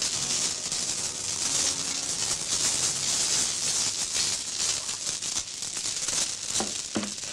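Glass chandelier crystals jingling and rattling continuously as the chandelier is shaken and swung on, with quiet music under it that fades out about halfway through.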